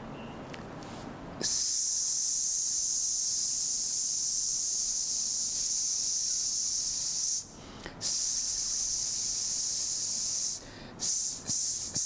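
A long, steady hissing "sss", the sound of the letter S likened to a snake's hiss. It is held for about six seconds, pauses briefly, is held again for a couple of seconds, and then comes as several short quick hisses near the end.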